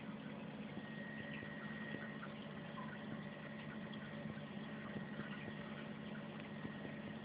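Aquarium water trickling and bubbling with small irregular ticks, over the steady low hum of the tank's pump.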